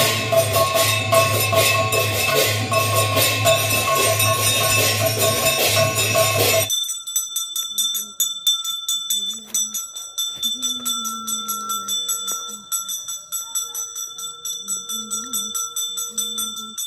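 Temple bells and percussion clanging rapidly and evenly over a steady low hum. After a cut about seven seconds in, a small puja hand bell is rung quickly and steadily during an aarti, its two clear ringing tones sustained under the strokes.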